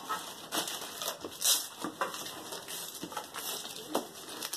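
Gift wrapping paper tearing and crinkling in a series of short rips and rustles as it is pulled off a plastic case.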